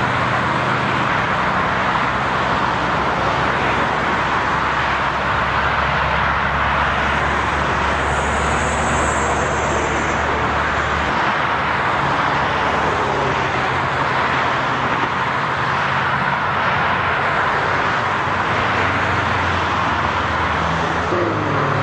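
Steady rush of freeway traffic passing on the open lanes, with a low steady engine hum underneath.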